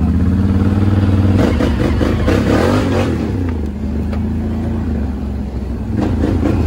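ATV engine running steadily, with a noisier, rattling stretch about a second and a half in and again near the end.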